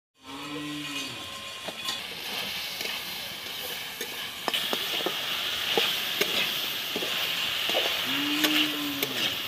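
Chicken, cauliflower and potato sizzling in an iron kadai over a wood fire, with a metal spatula clicking and scraping against the pan as the food is stirred; the sizzle grows louder about halfway through. A brief low-pitched call sounds twice, near the start and near the end.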